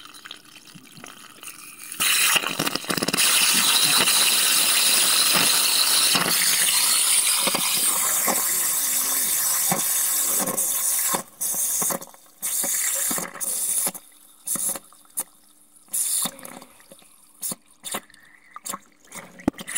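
Water spraying and hissing out of a cracked, pressurised buried water pipe into a flooded pit. Steady and loud from about two seconds in; after about eleven seconds it comes and goes in short spurts.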